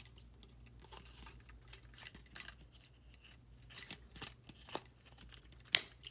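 Scissors snipping through the thin plastic cage of a bug-zapper LED bulb: a run of small clicks and snaps as the plastic gives, the loudest snap near the end.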